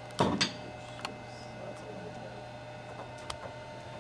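Small handling noises on a workbench: a short cluster of sharp clicks and knocks just after the start, then a faint tick about a second in and another near the end, over a steady low electrical hum.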